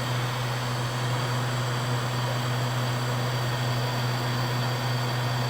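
Steady fan and airflow noise from the soldering bench's blower equipment, an even rush of air over a constant low hum.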